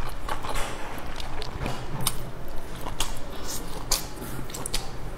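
Close-miked eating: a person bites and chews pieces of a stuffed bun dipped in chili sauce, with irregular wet mouth clicks and smacks.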